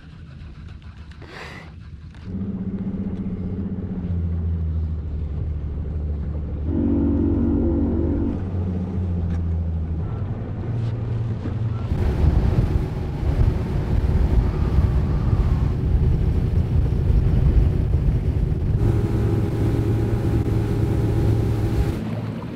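Bass boat's outboard engine running across the water, with wind and water noise; its pitch and loudness shift in steps, and it comes in about two seconds in after a quieter start.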